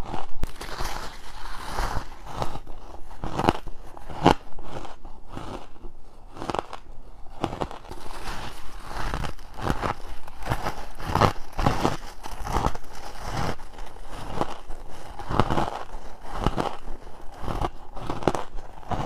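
Close-miked bites into freezer frost and ice: a dense series of crisp crunches, one after another.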